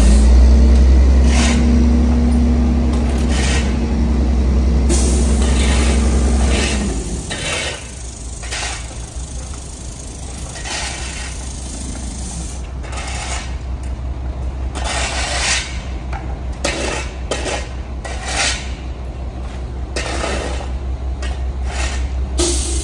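The diesel engine of a Mack MR rear-loader garbage truck runs revved up for about seven seconds, with a steady whine over the rumble. It then drops back to a low idle. Over the idle, a shovel and broom scrape and clatter on the pavement again and again as spilled trash is pushed into the Heil rear-loader hopper.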